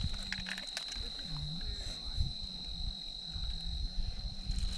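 Steady high-pitched trill of night insects, crickets, with irregular low handling noise and a short low grunting sound about a second and a half in.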